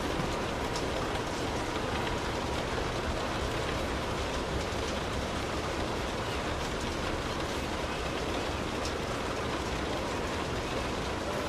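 Light rain falling on a car, heard from inside the cabin: a steady, even hiss with a low rumble underneath and a few faint sharper drop ticks.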